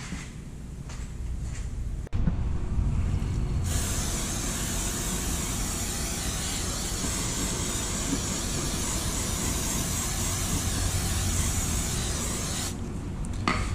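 A long, steady spray hiss lasting about nine seconds as the brake parts are cleaned before installation, starting a few seconds in after a low rumble.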